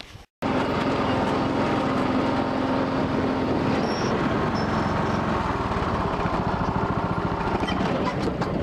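Vehicle engine running steadily at a constant speed, with a rapid, even pulse.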